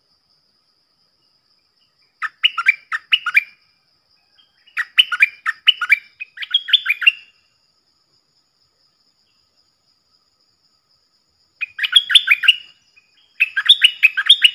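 Stripe-throated bulbuls singing in four short bursts of quick, rising and falling warbled notes, with pauses between them. A faint, steady, high-pitched drone runs underneath.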